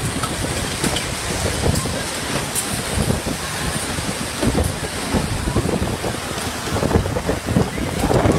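Violent storm wind gusting with driving rain, the gusts heavily buffeting the microphone; loud and continuous, surging unevenly.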